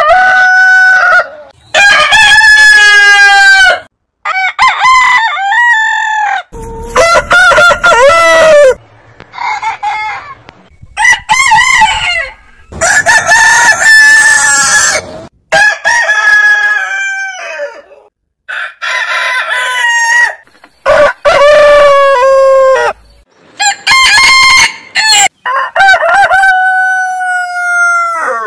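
Roosters crowing one after another: about a dozen loud crows from different birds, each one to two and a half seconds long, separated by abrupt cuts.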